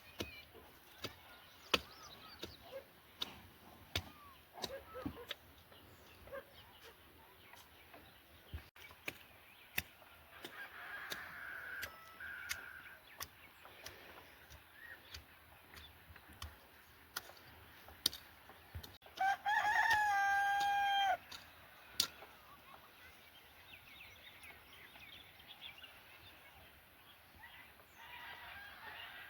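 A rooster crowing once, a single call of about two seconds that steps up in pitch and then holds, about two-thirds of the way through. Scattered sharp clicks and knocks sound throughout.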